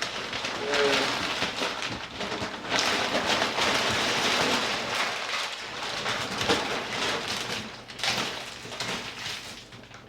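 Packing material rustling and crinkling as the vacuum cleaner is unwrapped and lifted from its box, in two long stretches with a short lull near the end.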